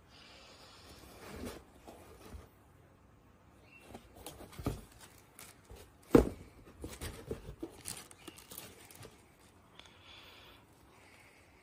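Handling noise from leather sneakers being picked up and turned over by hand: scattered rustles and soft knocks, with one louder knock about six seconds in.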